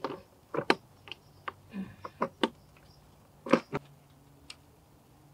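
A string of irregular, sharp metallic clicks and clinks, the loudest about three and a half seconds in, as a replacement snowblower carburetor and its throttle linkage are handled and fitted against the engine.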